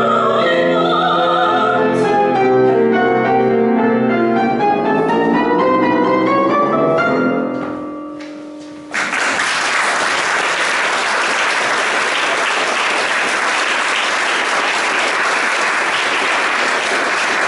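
Operatic singing with piano accompaniment, ending on a held note that fades about eight seconds in. Then the audience breaks into steady applause.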